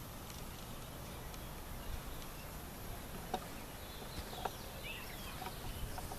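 Quiet outdoor ambience: a steady low background rumble and hiss, with faint bird chirps about four seconds in and a couple of light clicks.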